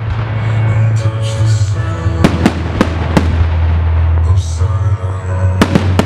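Aerial firework shells bursting: four sharp bangs a little over two to three seconds in, then a quick cluster of bangs near the end, over loud music with a heavy bass line playing for the pyromusical.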